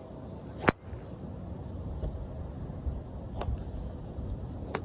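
A driver strikes a golf ball off the tee with one sharp crack under a second in. Two fainter clicks follow later, over a low rumble of wind.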